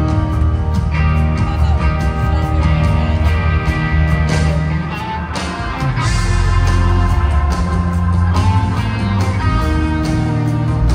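A live rock band playing loudly, with electric guitar, bass, drums and keyboards, heard from the audience floor of an arena.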